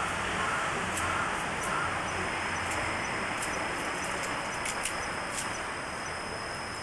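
Steady hiss and room tone of an old videotape recording, with a faint high whine throughout and a scattering of faint ticks.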